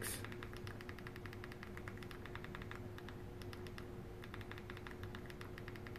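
Quick, irregular clicks of a TV remote's buttons pressed again and again to step across an on-screen keyboard, with a short pause just after halfway. A faint steady hum runs underneath.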